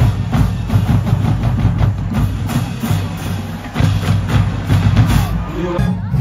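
Marching band percussion section playing a driving drum cadence, with heavy bass drum strokes in a steady, even rhythm. The sound changes abruptly near the end.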